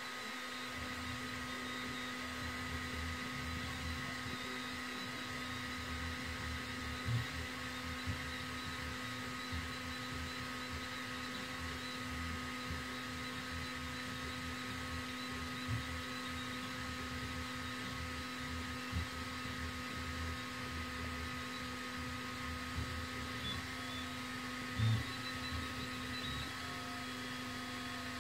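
EleksMaker A3 laser engraver with a T2 laser module running a raster engrave: a steady hum and whine from the machine, with a rapidly changing low buzz from the stepper motors as the head shuttles back and forth. A few brief low knocks stand out.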